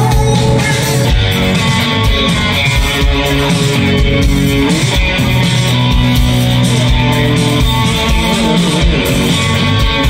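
Live rock band playing loudly through a festival PA, with electric guitar and drums over a steady bass line.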